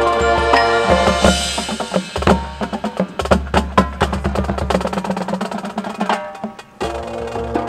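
Marching band music in a percussion-led passage: quick drum and wood-block strikes over held pitched notes. It drops out briefly about six and a half seconds in, then the full band comes back in.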